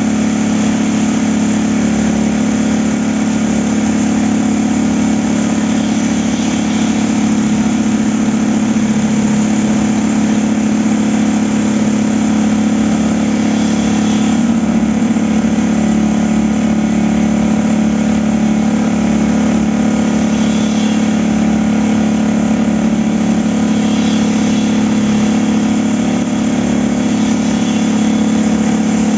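Concrete poker vibrator's drive motor running steadily, a continuous loud hum, while its needle works wet concrete.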